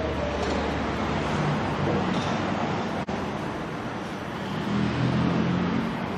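Steady background noise, a rumbling hiss with a low hum, with a brief dropout about three seconds in.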